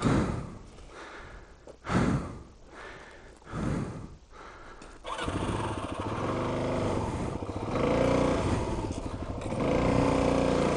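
Three short rushes of noise about two seconds apart, then a dual-sport motorcycle engine starts about five seconds in and runs steadily, revved up briefly twice.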